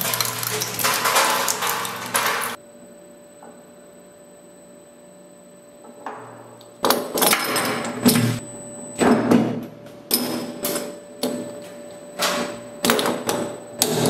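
Industrial twin-shaft shredder: loud grinding and crunching at first, then its motor running with a steady hum. From about seven seconds in, a steel 2-ton hydraulic bottle jack gives a run of loud, irregular clanks and knocks as it bounces on the turning cutter blades without being bitten into.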